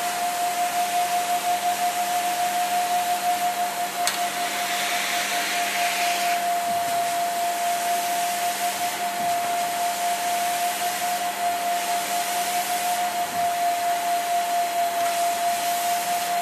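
Commercial steam carpet cleaner running with its stainless wand drawn across a rug: a steady motor whine over a rushing hiss of air and steam. The hiss grows brighter for a couple of seconds about five seconds in.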